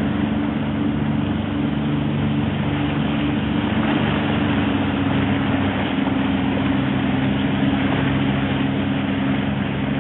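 30 hp outboard motor on an inflatable rescue boat running steadily at speed, a constant low drone over the rushing of water past the hull.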